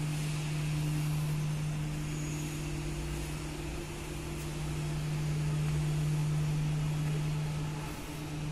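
A steady low mechanical hum over a constant hiss, dipping briefly near the end.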